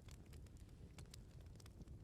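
Wood bonfire crackling: frequent irregular small pops and snaps over a low steady rumble.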